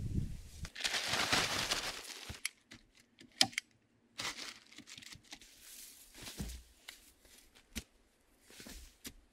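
Plastic tarpaulin rustling and crinkling as it is handled, loudest in the first two seconds, then a few sharp clicks and scattered quieter rustles. Near the end, a shovel scoops sand.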